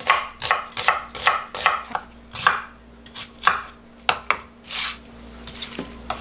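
Chef's knife slicing through an onion and knocking on a wooden cutting board, a crisp cut about two times a second, then fewer and fainter cuts over the last couple of seconds.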